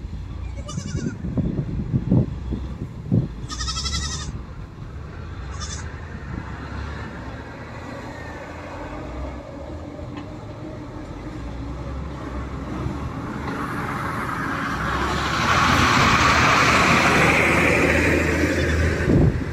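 SDLG wheel loader's diesel engine working as it tips coke into a dump truck, with a rushing noise that builds through the second half and is loudest near the end. Three short wavering high calls come in the first several seconds.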